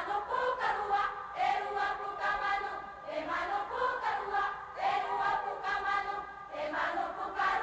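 A choir of voices singing together in phrases, from a film soundtrack played back on an Akai reel-to-reel tape deck.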